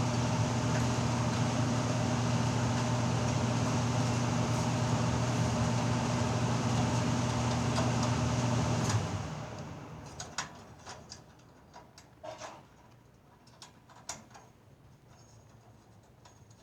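Steady hum of a fan or blower motor with a low droning tone, winding down and stopping about nine seconds in; then a few light clicks and taps of handling.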